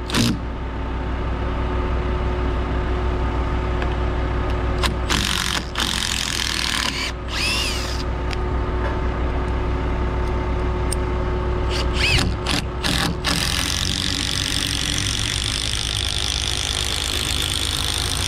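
Cordless Makita impact driver hammering long screws into a heavy rough-sawn timber fascia board, a steady rattling buzz with a few short stops and clicks along the way.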